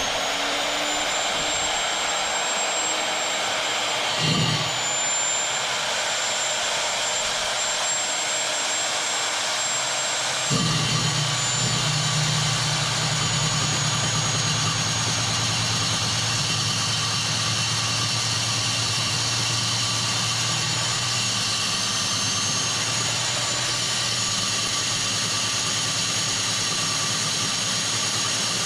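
Bluerock 8Z1 core drill's electric motor spinning up to a steady high whine. From about ten seconds in, the core bit grinds into the concrete under load, adding a lower grinding note as the whine sags slightly.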